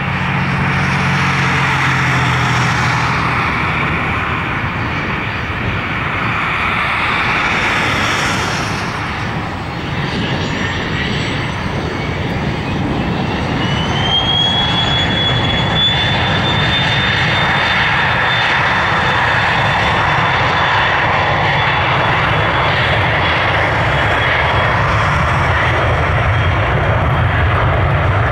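Twin Pratt & Whitney Canada PW545 turbofans of a Cessna Citation 560XL spooling up for takeoff. A steady jet rush, with a whine that rises in pitch from about ten seconds in and then holds high and steady as the jet rolls down the runway.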